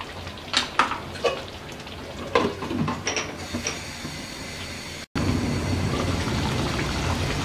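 A ladle clinking and scraping against a cooking pan several times while a thick curry is stirred over high heat. About five seconds in the sound changes abruptly to a steady low noise of the curry cooking.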